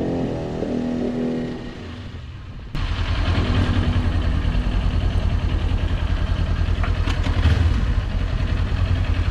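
Music with held tones for the first couple of seconds, then, cutting in suddenly about three seconds in, a Kawasaki Ninja 400's parallel-twin engine running at low revs with a fast, even pulse as the bike rolls slowly.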